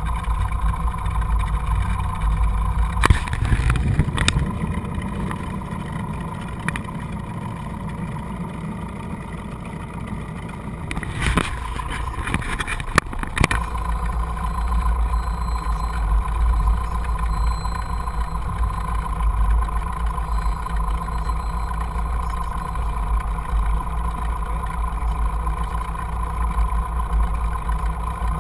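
Cessna light aircraft's piston engine and propeller running steadily at low power, heard inside the cabin as a constant drone. A few sharp clicks come about three and four seconds in and again around eleven to thirteen seconds.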